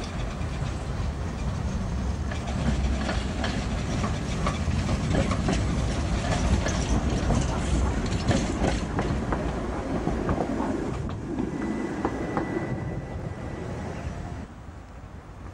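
Tatra KT4-type articulated tram passing close by, a low rumble with its wheels clicking over the rail joints, growing louder to a peak about eight seconds in and then fading, dropping away sharply near the end. A faint steady high whine is heard briefly twice.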